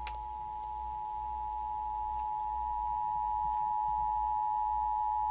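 Emergency Alert System attention signal: two steady tones sounded together, announcing that an alert message, here a tornado warning, is about to follow. A single click at the very start.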